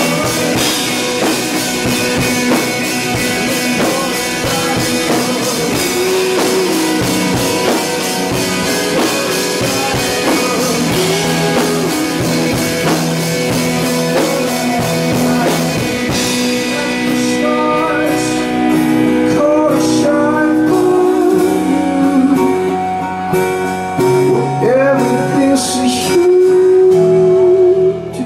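Live rock band playing: electric guitar, drum kit and a singing voice. About halfway through, the cymbals and drums drop back, leaving guitar and voice more exposed.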